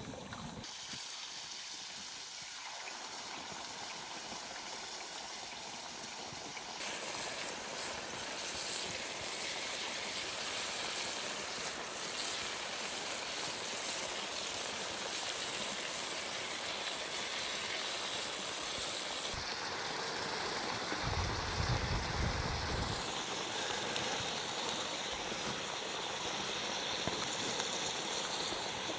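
Steady rush of running water, like a stream, whose level and tone shift abruptly about 7 and 19 seconds in. A brief low rumble comes about 21 seconds in.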